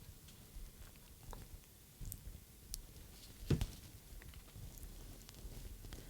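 Faint scattered clicks and taps from handling a small plastic radio transmitter and its parts, with one louder knock about three and a half seconds in.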